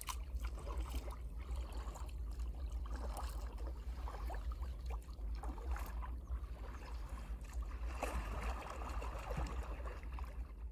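Water lapping and trickling against a kayak's hull, with small irregular splashes over a steady low rumble.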